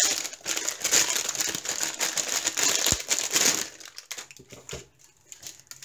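Clear plastic bag crinkling as it is opened and pulled off a kit. It is dense for about three and a half seconds, then drops to a few faint rustles.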